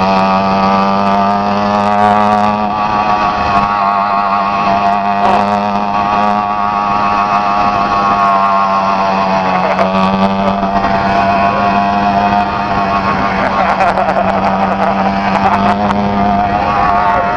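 Motorized bicycle's 80cc two-stroke engine running steadily at cruising speed, a steady engine note whose pitch wavers only slightly.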